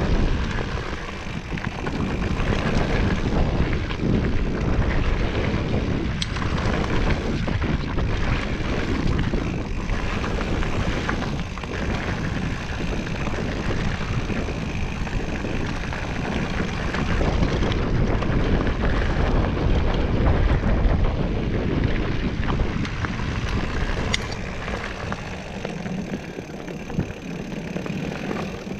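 Wind rushing over the microphone mixed with the rumble and rattle of a mountain bike being ridden over a rough dirt trail, as a steady loud noise that swells and dips.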